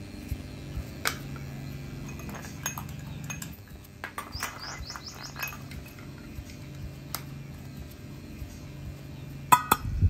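Plugs and a power strip being handled with scattered sharp clicks over a low steady hum, a bird chirping a quick run of short notes midway, and a metal frying pan clattering down onto an induction coil near the end.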